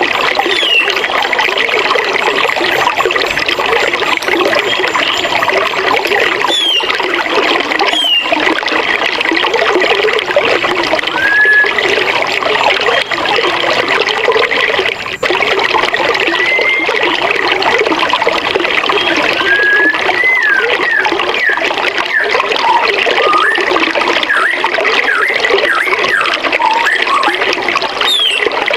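Forest river flowing steadily, with birds chirping short whistled notes now and then, coming more often in the second half.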